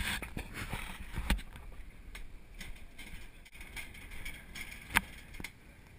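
Irregular footsteps and knocks on a wooden dock, with rustle from the camera being carried. A thump about a second in and a sharp knock about five seconds in are the loudest.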